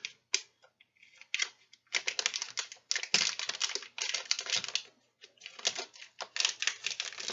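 Plastic packaging being pried and torn open by hand: irregular crinkling and clicking, a few scattered clicks at first, then a dense run of crackles with a brief pause about five seconds in. The seals are tough.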